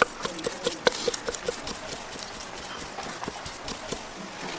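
Large kitchen knife chopping a raw fish fillet into thin slices, bones in, knocking on a wooden cutting board. Quick even knocks about four or five a second at first, then sparser after about a second and a half.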